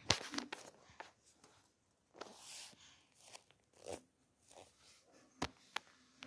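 Handling noises: scattered rustles and crinkles, with a few sharp clicks near the end.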